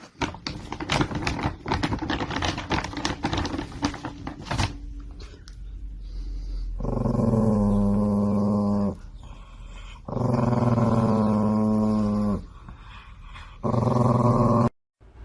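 A dog growling in three long drawn-out stretches of about two seconds each, after several seconds of clicks and knocks.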